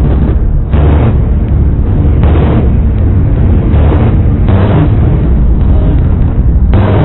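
Heavily processed, distorted "flanged saw" sound effect layered into chords: a loud, constant low rumble with repeated hissing bursts every second or so.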